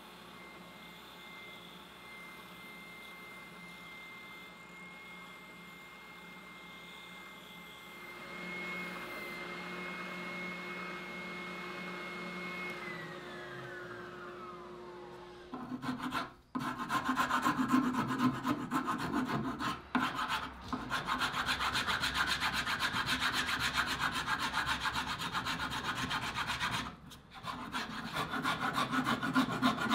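An electric power tool's motor runs with a steady whine, then is switched off and winds down in a falling pitch about halfway through. A file then rasps steadily on the Cabreuva wood, with a few short pauses.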